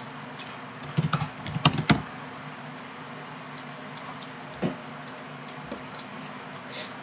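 Computer keyboard typing: a quick run of keystrokes about a second in and a single key press later, over a faint steady low hum.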